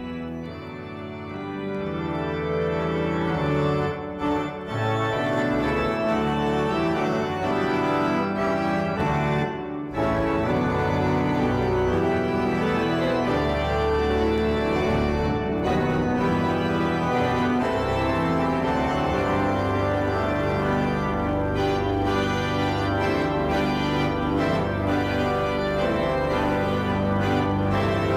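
Organ music for a procession, sustained chords moving from one to the next, swelling in over the first couple of seconds, with a brief break about ten seconds in.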